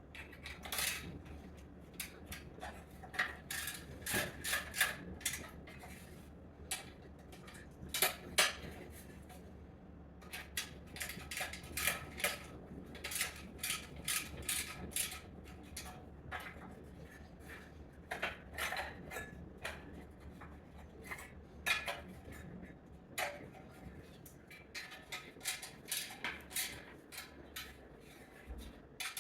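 Ratchet wrench clicking in quick runs as nuts are turned on a bumper bracket, with scattered clinks of loose metal nuts and washers.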